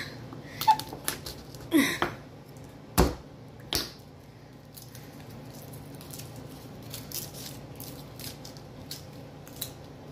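Hands breaking apart and peeling garlic cloves on a wooden cutting board: scattered light taps and clicks, with a sharper knock on the board about three seconds in. A brief rising voice-like sound comes around two seconds in.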